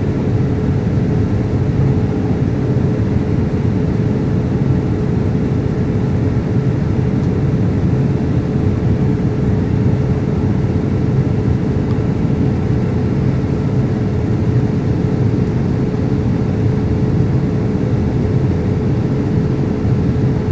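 Steady cabin noise inside a Boeing 787 Dreamliner: a low rumble of air and machinery with a constant hum tone over it, unchanging throughout.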